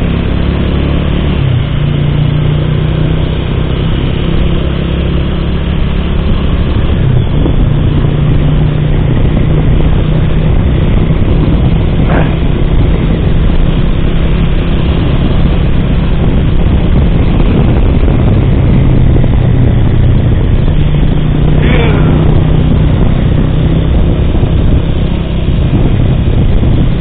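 Bajaj Pulsar motorcycle engine running at riding speed, its note shifting a little now and then with the throttle, over steady wind and road noise on the rider-mounted microphone.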